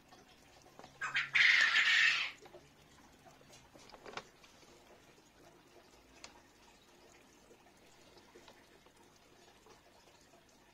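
Faint steady trickle of water in a pond, broken about a second in by one loud rasping sound lasting about a second, with a fainter one shortly after.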